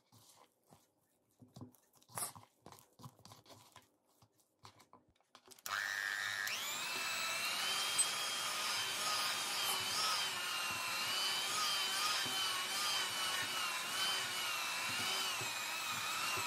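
A few faint scrapes of a silicone spatula working dough in a bowl. About five and a half seconds in, an electric hand mixer switches on, spins up and runs steadily with a whine that wavers in pitch as its dough hooks knead the bread dough.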